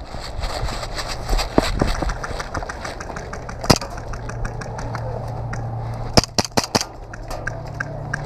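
Airsoft gunfire: scattered single sharp pops, then a quick string of about five shots a little after six seconds in, over a steady low hum.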